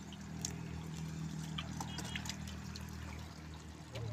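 Wet mud squelching with scattered small slaps and clicks as hands scoop mud and wriggling fish into a plastic basket. A steady low hum runs underneath.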